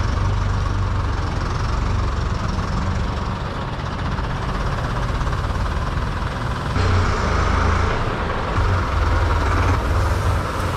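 Diesel engine of a SAME Centauro 70 tractor running steadily as its front loader begins loading wheat into a truck trailer. About seven seconds in, a louder rushing hiss joins the engine.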